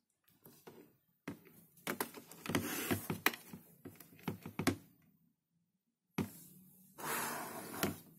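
Handling noise from a plastic solar panel and its coiled cable being moved about on a desk: clicks, knocks and rustles in two bouts, with a pause of about a second between them.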